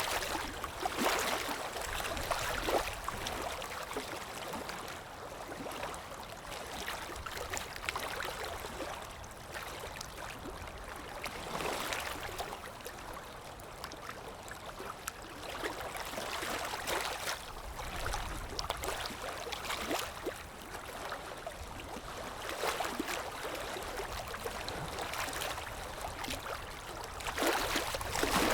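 Water flowing and splashing in a steady wash that swells in short surges every few seconds.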